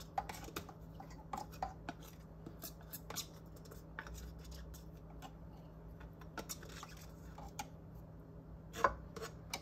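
Light, scattered scrapes and taps of a utensil scraping sticky molasses out of a measuring cup over a metal mixing bowl, with a faint steady hum underneath.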